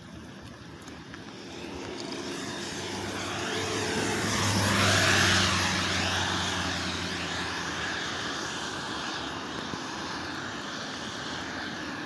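A propeller airplane flying over: a low engine drone swells to its loudest about five seconds in, then slowly fades away.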